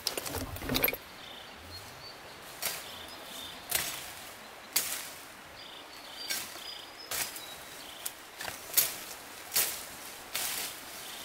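Footsteps and rustling leaves and branches as a person walks through dense undergrowth, about one step a second. The first second is a louder brush past close by.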